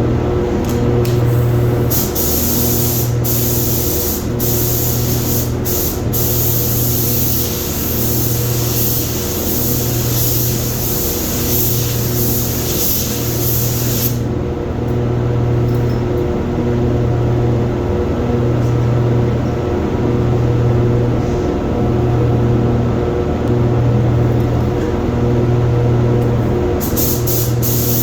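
Paint spray gun hissing as clear coat is sprayed in passes, with short breaks between them; the hiss stops about halfway and starts again near the end. Under it runs a steady low machine hum that pulses slowly.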